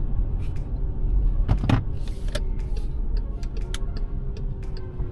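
Car driving: a steady low rumble of engine and road noise, with a few light clicks and rattles.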